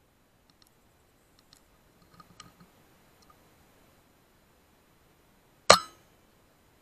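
Single air rifle shot: one loud, sharp crack a little past two-thirds of the way in, dying away quickly. Faint scattered ticks come before it.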